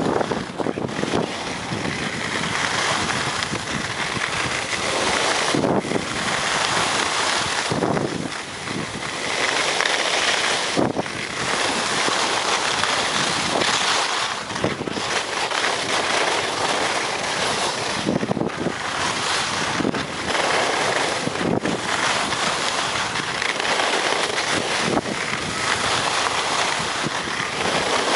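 Wind noise on the microphone of a camera carried by a skier at speed, mixed with the hiss and scrape of skis on groomed snow, swelling and easing every few seconds.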